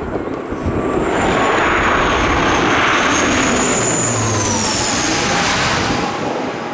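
Jet airliner on landing approach passing low overhead. Its engine noise swells about a second in, with a high whine that drops in pitch as it goes over, then eases off near the end.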